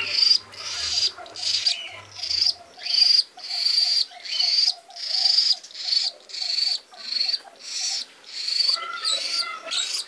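Young, nearly naked parrot chick giving a steady run of short, raspy calls, about two a second.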